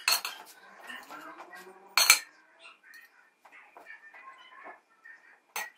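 Serving spoon clinking and scraping against an aluminium pot and a glass dish as cooked rice is scooped out. A few sharp clinks, the loudest about two seconds in, with softer scraping between.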